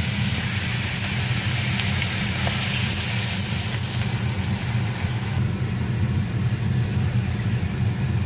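Hot pan of sautéed chicken and vegetables sizzling and hissing as water is poured in, over a steady low hum; the high hiss drops off sharply about five seconds in.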